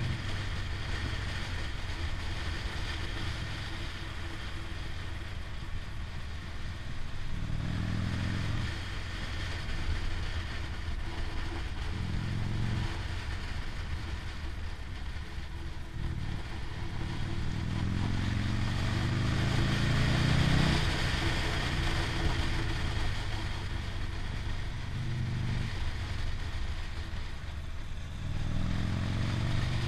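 Motorcycle engine heard from onboard, pulling up in pitch several times as it accelerates and falling back between, the longest rise building for a few seconds past the middle. A steady rush of wind and road noise runs underneath.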